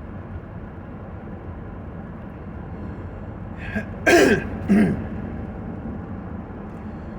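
Steady road and engine noise inside a moving vehicle's cabin. About four seconds in, a man clears his throat in two short bursts.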